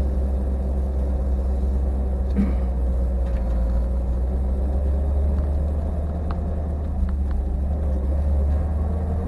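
Ford Mustang driving on a snowy road, heard from inside the cabin: a steady low rumble of engine and tyres with a few faint ticks.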